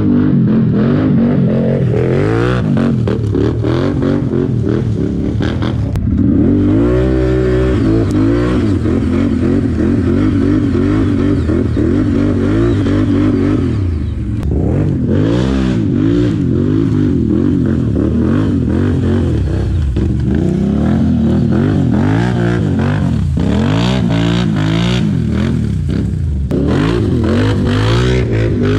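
ATV engine running hard, revving up and dropping back over and over, with occasional short knocks and clatters.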